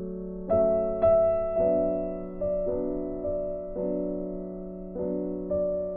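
Slow background piano music, a new note struck every half second to a second and left to ring and fade.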